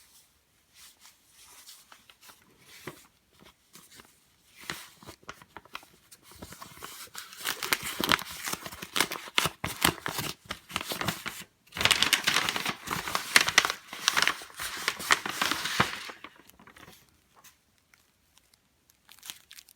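Watch-parts packaging being handled and opened: a few light clicks and rustles at first, then dense rustling and tearing in two long spells with a brief break between, the second one the loudest.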